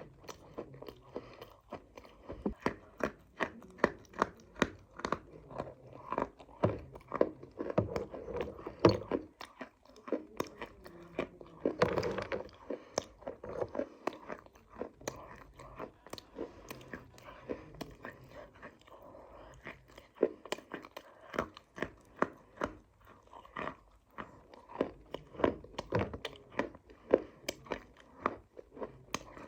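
Close-up crunching and chewing of hard, dry clay (matti) pieces: many irregular sharp snaps and crackles as the pieces are bitten and ground between the teeth, loudest about twelve seconds in.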